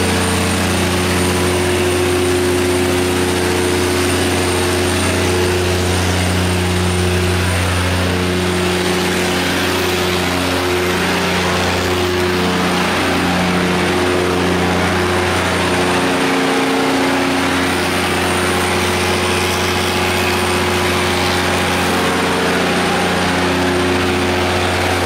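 Cummins QSX15-G9 inline-six diesel engine of a 500 kW generator set running at a steady governed speed, a constant low hum with a continuous mechanical clatter over it.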